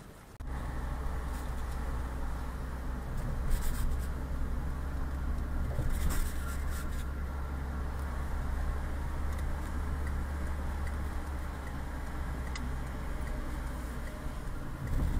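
Car cabin noise picked up by a dashboard-mounted action camera while driving: a steady low engine and road rumble, with a couple of brief clicks about three and a half and six seconds in.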